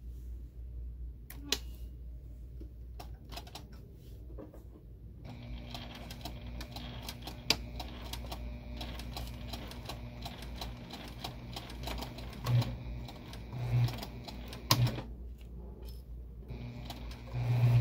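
Electric sewing machine stitching a pinned fabric seam in a steady run starting about five seconds in, stopping briefly near the end and starting again. A few light clicks come before it starts, and a few dull thumps sound during the stitching.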